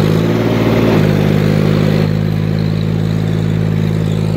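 John Deere tractor's diesel engine running under way at steady revs, its pitch settling about a second in after picking up speed.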